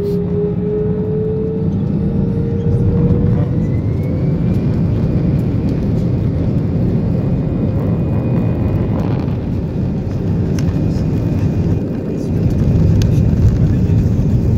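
Airbus A320-214's CFM56-5B jet engines at takeoff power, heard from an over-wing cabin seat during the takeoff roll. A rising whine levels off about four seconds in over a loud steady rush of engine and runway noise, which grows louder again near the end.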